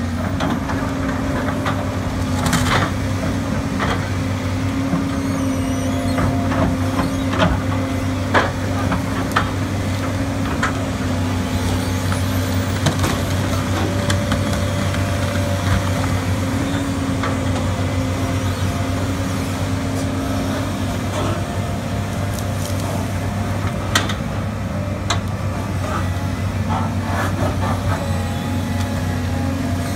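Heavy diesel excavator engine running steadily under load while it digs out a tree stump, with scattered sharp cracks and snaps of roots and wood breaking.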